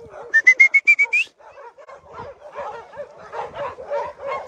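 A quick run of about seven short whistle notes, each a little higher, in the first second: a whistle calling for a lost puppy. Then a puppy whimpering and yipping over and over.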